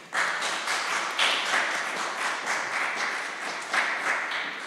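Audience applause: many hands clapping together, fading near the end.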